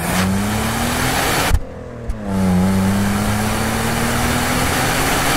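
A car engine pulling under acceleration, its pitch climbing slowly, with a brief drop in level about a second and a half in before it picks up and climbs again.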